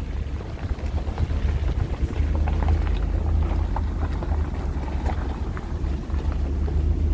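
A vehicle driving slowly: a steady low rumble with light scattered ticks and rattles.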